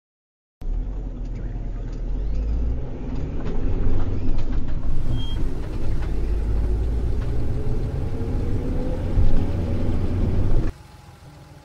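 Low, steady rumble of a vehicle engine running, cutting in abruptly and stopping suddenly after about ten seconds, with a faint rising whine partway through.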